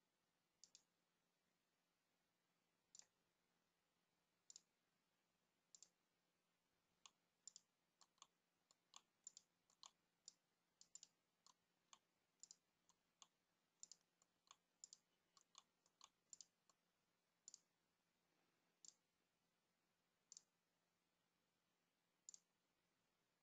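Faint, sharp clicks of a computer mouse and keyboard: a few spaced clicks, then a quick run of them for about ten seconds in the middle, thinning out again near the end.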